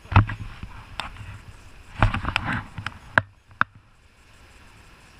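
Paddles stroking the water and knocking against the boat, sharp knocks and splashes about once a second, dying away after about three and a half seconds into a quiet hiss of water and wind.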